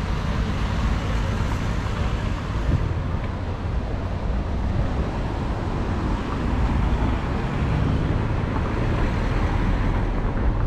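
Steady city road traffic: a continuous low rumble of vehicles driving past on the street.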